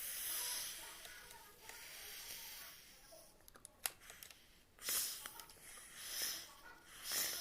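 Several short hissing puffs, with a few sharp clicks a little past halfway.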